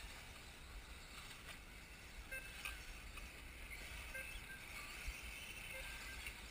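Wind rumbling on the microphone over a faint outdoor background, with a few short, faint high blips.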